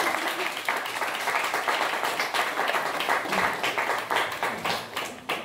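Audience applauding: many people clapping together, easing off near the end.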